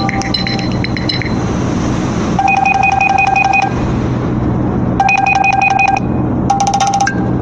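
Built-in ringtone previews playing on a Nokia 3 Android phone as each is tapped in the list. A chiming tone dies away in the first second. Then an electronic beeping tone plays two phrases, each a held beep with a fast run of higher pips over it. Near the end a brighter tone starts, in short phrases of about half a second, each ending on a higher note.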